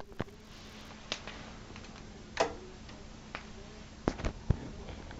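Scattered clicks and light knocks from the Sansui XR-Q9 turntable's controls and mechanism, about seven in five seconds, with three close together near the end, over a faint steady hum.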